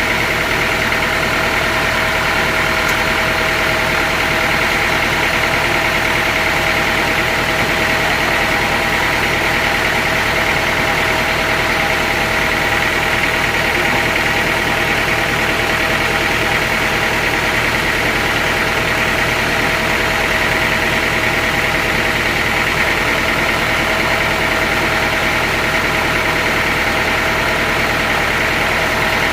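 Sawmill machinery running steadily: a constant engine-like drone with a steady whine that does not change in pitch or level.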